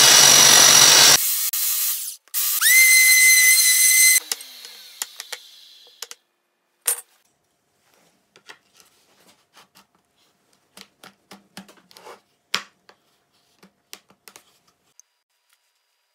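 Handheld electric belt sander running loudly on a wooden panel for about a second, then stopping. A power tool then spins up with a rising whine that settles into a steady pitch and cuts off about two seconds later. After that come scattered light knocks and taps of wood on a workbench.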